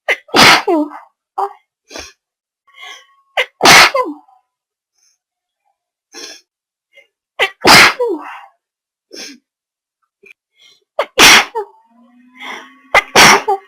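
Five loud human sneezes, one about every three to four seconds, with short breaths and brief voice sounds between them.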